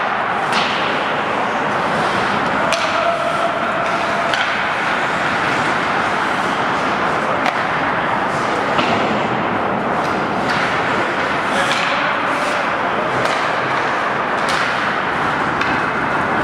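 Ice hockey play: a steady scraping hiss of skates on the ice, with sharp clacks of sticks and puck scattered through, about a dozen in all.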